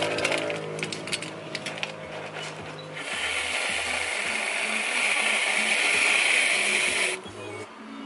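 Café barista equipment at work: a quick run of sharp clicks and rattles, then, about three seconds in, a loud steady hiss that cuts off suddenly about a second before the end. Background music plays throughout.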